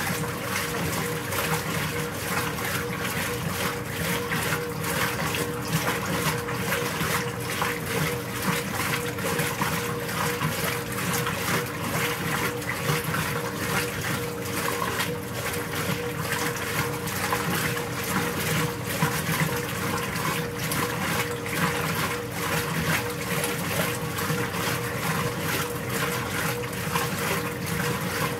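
Whirlpool Supreme belt-drive top-load washer agitating: its Surgilator agitator churns water and clothes with a continuous swishing and sloshing over a steady motor hum.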